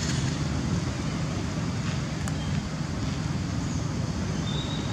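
Steady outdoor background rumble and hiss, with a brief thin high tone near the end.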